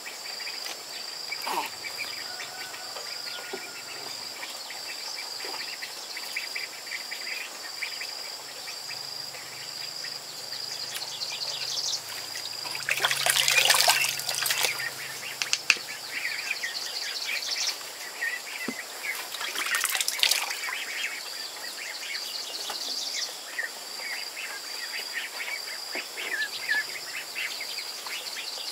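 Water splashing and dribbling in a plastic basin as a newborn's head is washed with a wet cloth, loudest in two spells, one about halfway through and one about two-thirds in. Insects chirp steadily in a fast pulsing rhythm throughout, with a few bird chirps.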